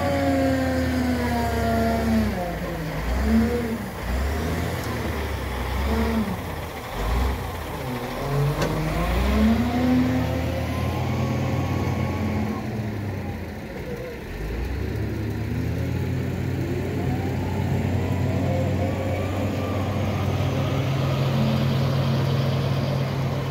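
Caterpillar 966D wheel loader's diesel engine revving up and down again and again under hydraulic load as it lifts and tips its bucket. From about halfway in it runs at a steady speed.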